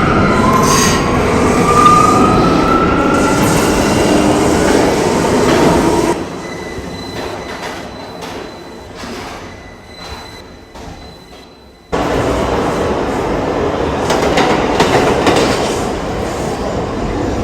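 R179 New York City subway train running in the tunnel, heard on board: wheels rumbling and clattering on the rails, with squealing wheels gliding in pitch near the start. About six seconds in the noise drops sharply to a quieter hum with a faint steady whine, then about twelve seconds in it cuts back in loud.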